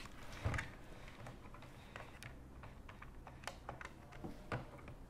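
Corded desk telephone: a knock as the handset is picked up, then a run of faint, irregular clicks as the number is pressed in on its keypad.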